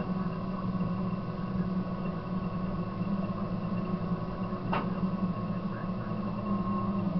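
Caterpillar D6 bulldozer's diesel engine running steadily, heard from inside the cab, a low drone with a thin steady whine above it. A single short click about five seconds in.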